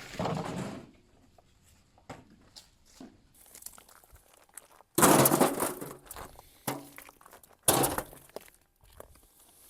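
Broken concrete and rock rubble crunching and clattering as it is cleared, in three short loud bursts with quieter clinks between them.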